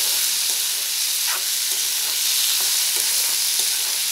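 Chopped tomatoes and onions sizzling in hot oil in a metal kadhai, with a steel spatula scraping and stirring against the pan in repeated irregular strokes over a steady hiss.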